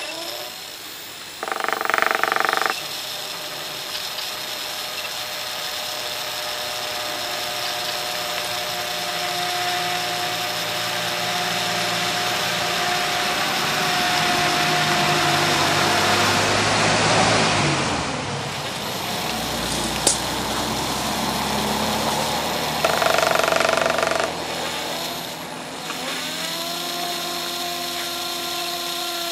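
Electroacoustic concert music: a dense, machine-like noise texture with held tones that drift slowly in pitch. Two short, louder chord-like bursts come about 2 seconds in and again near 23 seconds, with a single sharp click around 20 seconds; the texture thins briefly near 18 seconds before new held tones settle in.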